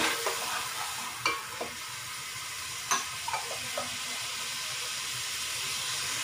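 A masala of fried onion, ginger-garlic paste and tomato paste sizzling steadily in oil in an aluminium pot. A metal spatula clicks against the pot a few times in the first four seconds as the masala is stirred.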